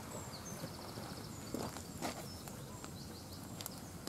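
Quiet outdoor background with small birds singing short, quick, high trills several times, and a few faint clicks.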